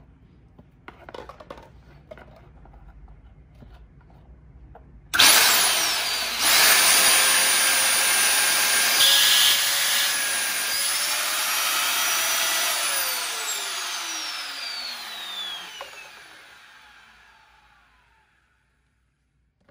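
Bare Samsung 220 V 1380 W vacuum cleaner motor switched on at full power about five seconds in: a sudden loud rushing whine. After about thirteen seconds the power is cut and it spins down, its whine falling in pitch and fading out over a few seconds.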